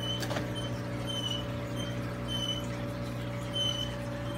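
Steady electrical hum of running aquarium equipment, with short high chirps recurring about once a second and a single click just after the start.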